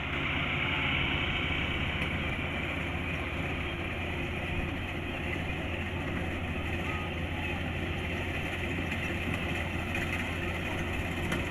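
Kubota combine harvester running steadily under load: a diesel engine hum with the constant rushing noise of the cutting and threshing machinery.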